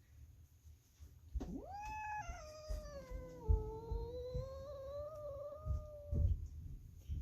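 Orange tabby kitten giving one long, drawn-out meow of about five seconds that rises quickly, dips, then climbs a little before breaking off, with a few soft low thumps.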